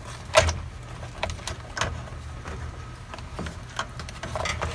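Slotted wooden spatula stirring crab pieces in a stainless steel pot of coconut-milk stew: scattered knocks and clatters of crab shell and spatula against the pot, the loudest about half a second in, over a steady low hum.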